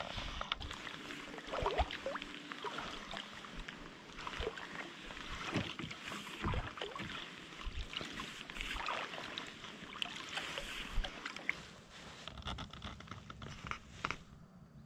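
Paddling a canoe: paddle strokes through the water with splashing and trickling that swells every few seconds, and occasional short knocks.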